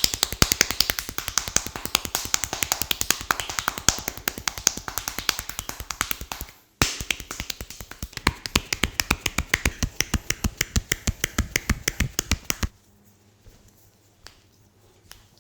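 Rapid, even tapping by hand in a massage, sharp clicks at about ten a second. There is a brief gap about seven seconds in, then the tapping stops, with only a few faint ticks after.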